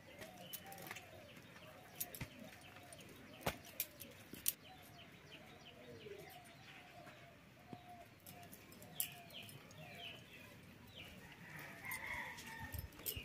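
Chickens clucking faintly, a long string of short calls repeating every fraction of a second, with a few sharp clicks among them and higher bird chirps near the end.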